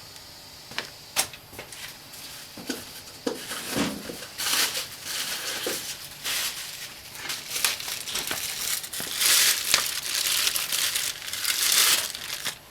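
Packaging crinkling and tearing as a new wheel hub is unwrapped, with a few sharp clicks and knocks in the first seconds and rustling that grows busier toward the end.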